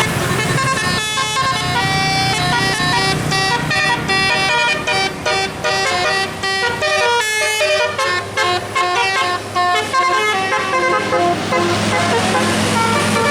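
Bus telolet horn, a multi-note musical air horn, playing a fast melody of short stepped notes. It stops near the end, leaving the low steady hum of the bus engine.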